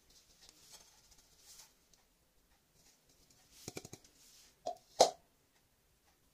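Ground roasted peanuts sliding out of a plastic chopper bowl onto a clay plate with a soft hiss. This is followed by a few light clicks and two sharp knocks about five seconds in, the second one the loudest.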